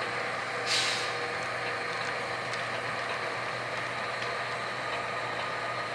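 HO scale model train moving slowly: the sound decoders of three consisted GP40-2 diesel locomotives run steadily as they shove a cut of tank cars along the track. A short hiss comes about a second in.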